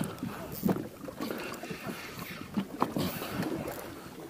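Open-water ambience on a small fishing boat: water moving against the hull and wind, with a few short faint sounds on top.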